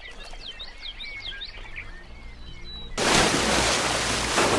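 Birds chirping in short repeated calls over a quiet, calm lake. About three seconds in, this cuts suddenly to the loud, steady rush of whitewater rapids.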